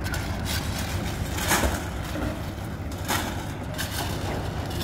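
A concrete mixer running with a steady low hum while concrete is mixed, with several sharp scraping clatters over it, the loudest about a second and a half in.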